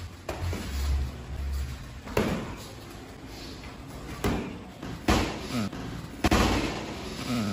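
Gloved punches landing in sparring: about five sharp slaps and thuds of boxing gloves hitting gloves and body, spaced irregularly, the loudest about six seconds in.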